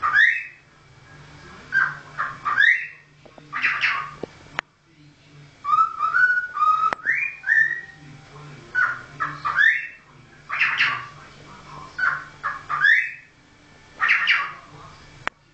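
Cockatiel whistling a learned tune in short repeated phrases of rising, sliding notes, a new phrase about every two seconds.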